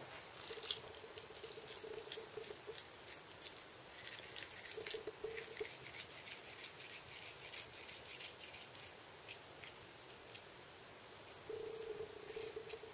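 Hands rolling sticky minced beef mixture between the palms, giving many quick, soft, wet clicks and smacks.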